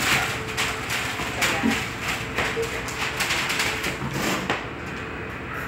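Puppies scuffling in play: claws clicking and scratching on a tiled floor and sheets of newspaper rustling, in an irregular patter that dies down about four and a half seconds in.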